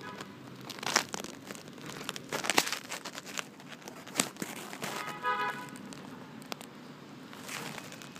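Handling noise from a phone being moved: irregular crinkling and rustling with sharp clicks. A brief pitched squeak comes about five seconds in.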